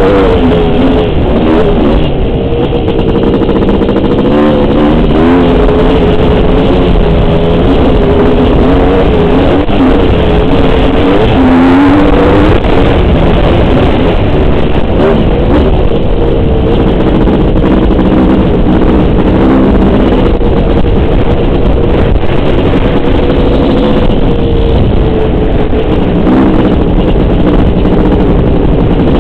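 Honda CR500 two-stroke dirt bike engine running hard at speed, its pitch rising and falling over and over as the throttle is worked and gears change.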